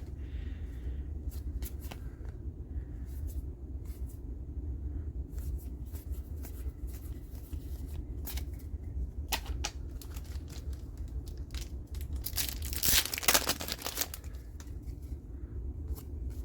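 Trading card booster pack wrapper crinkling and tearing open late on, the loudest sound, with light clicks and rustles of cards being handled throughout over a low steady hum.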